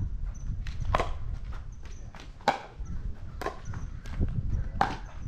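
Pickleball paddles striking a hard plastic ball during a rally: several sharp pops roughly a second apart, with shuffling footsteps on the court surface.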